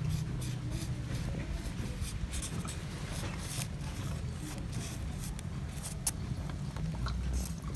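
Felt-tip marker drawing on the rough-carved wood of a barong mask: many short, scratchy strokes in quick, uneven succession as the sketch lines are traced over.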